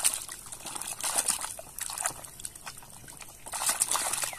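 Muddy, soapy water sloshing and splashing in a plastic tub as a hand swishes toy cars through it, with trickling and dripping; busier at the start and again near the end.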